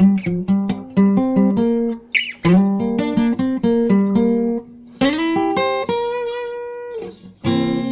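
Acoustic guitar played alone: a run of quick picked single notes and bass lines, then a full chord strummed about five seconds in and left to ring out, with another strum near the end.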